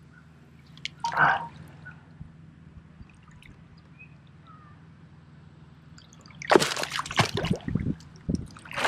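Water splashing and dripping around a hooked largemouth bass: a brief splash about a second in, then a longer run of splashing from about six and a half seconds on as the fish struggles on the line.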